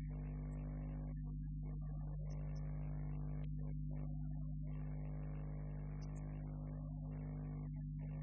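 Steady electrical mains hum, with faint stop-start music over it.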